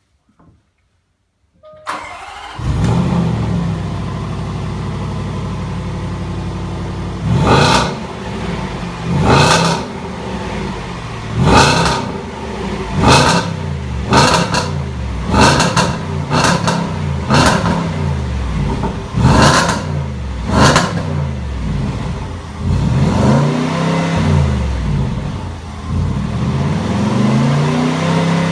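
2016 Range Rover Sport's supercharged 5.0 V8 and stock exhaust starting up about two seconds in, then running at a steady fast idle. About five seconds later it is revved in a string of sharp throttle blips, roughly one every second and a half, followed near the end by a few slower revs that rise and fall.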